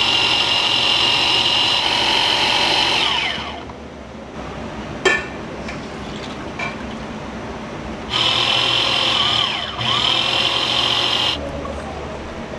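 An electric motor runs with a steady high whine, then winds down after about three and a half seconds. A sharp click follows, and near the end the motor runs again twice in quick succession.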